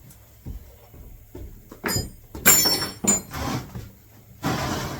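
A few short bursts of scraping and clatter as things are moved about, one about two and a half seconds in with a brief metallic ring.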